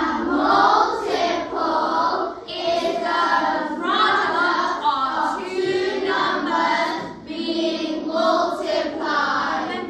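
A class of young children singing together in unison, in short phrases.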